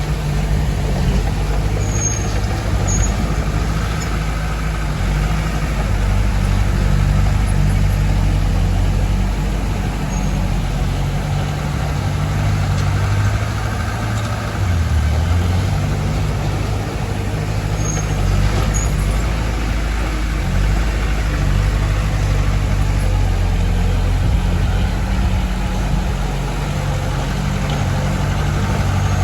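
Heavy diesel engines of earthmoving machinery running continuously. Their low drone shifts in pitch and load as the machines work.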